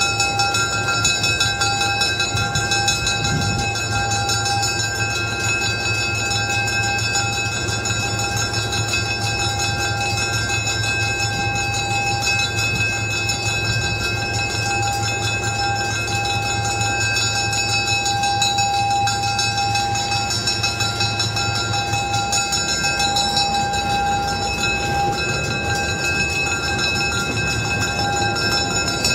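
EMD SW9 switcher locomotive's V12 two-stroke diesel running as it creeps along the track, a steady low drone that eases off about 22 seconds in. Steady high-pitched tones sound over it throughout.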